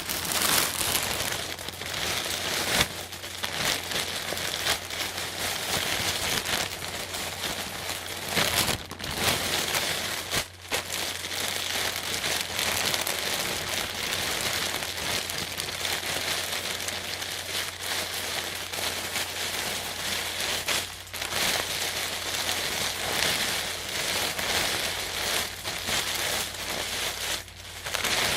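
Plastic bag being crumpled and handled, a continuous crinkling crackle with uneven loudness and a few brief pauses.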